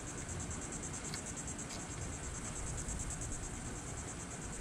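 Insects trilling, a steady, evenly pulsing high buzz, with a couple of faint clicks of hardware about a second in as a bolt is fitted to a mirror bracket.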